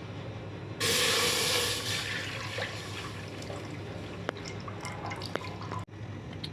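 Liquid pouring or splashing into a container, starting suddenly about a second in and tailing off over the next second, followed by a few light clicks.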